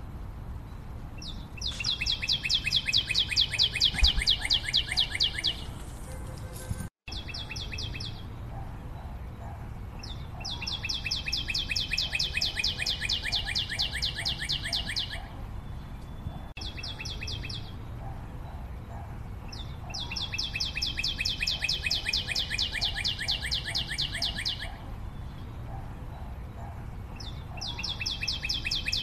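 A bird's rapid trill: a fast run of evenly spaced chirps lasting about four to five seconds, returning about every nine seconds, with shorter chirps in between. The sound cuts out for an instant about seven seconds in.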